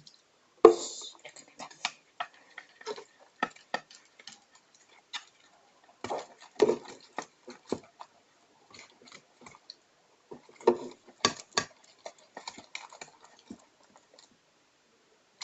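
Slime mixture of glue and soap foam being stirred in a container as borax activator is added: irregular clicks, taps and knocks, with louder clusters about a second in, around seven seconds and around eleven seconds.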